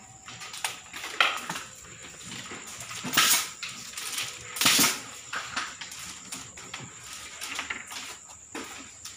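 Scattered light clicks and rustles of bamboo strips being handled in a basket-weaving workshop, with two short hissing noises about three and four and a half seconds in.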